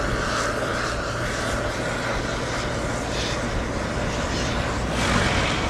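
Steady road and wind noise from a vehicle travelling along an asphalt road beside a rolling longboard, with a low steady hum underneath and a louder gust about five seconds in.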